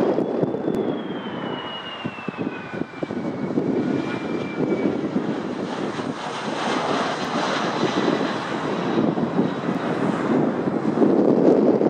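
Boeing 737-400's CFM56 turbofan engines running, a high whine falling in pitch over the first few seconds over a steady broad rumble.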